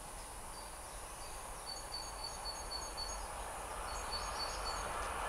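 A distant diesel railcar approaching, a faint steady rumble that slowly grows louder, while a bird gives short, repeated high chirps.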